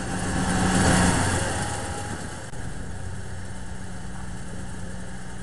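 A car engine idling steadily, a low even hum, with a broad swell of noise over the first two seconds.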